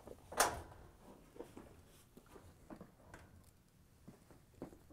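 Handling noise from a Maytag washer cabinet as it is tilted back upright: one knock a little under half a second in, then faint scattered taps and clicks.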